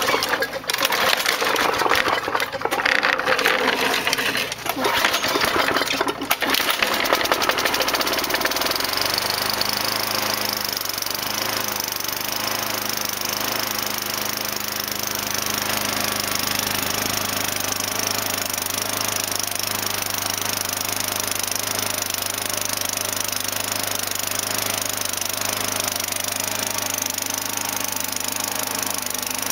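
Mastercraft lawnmower's small gasoline engine on a cold start after sitting all winter: several seconds of loud, uneven noise, then it catches about eight seconds in and settles into steady running.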